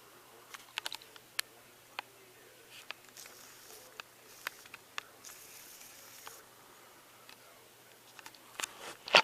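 Halsey Hugger ceiling fan running on medium speed: a faint steady hum with light clicks and ticks at irregular intervals, and a louder click near the end.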